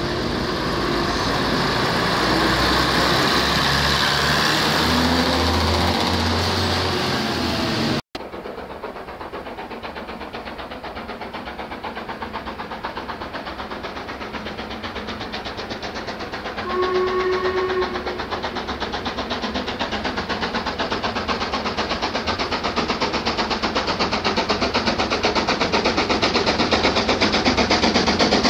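A Class 101 diesel multiple unit's diesel engines running, their note stepping upward as it moves off along the platform. Then a steam locomotive working towards the listener, its rapid exhaust beats growing steadily louder, with a short whistle about halfway through.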